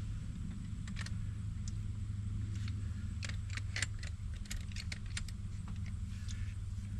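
An engine idling steadily with a low hum, with a scatter of light clicks and clinks in the middle seconds, in the run of work on the water pipe's coupling.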